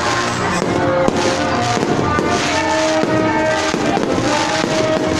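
Fireworks bursting again and again, with sharp bangs and crackles, over music with long held notes.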